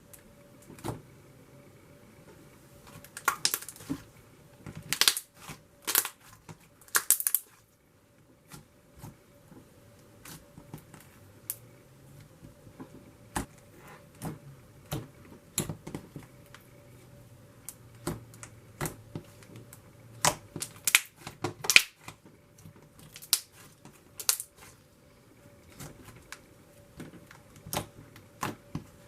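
Thick slime with foam beads being squeezed, stretched and pressed by hand, giving an irregular run of sharp pops and clicks from trapped air bubbles and crackling from the foam beads, with denser bursts of crackles a few seconds in and again past the middle.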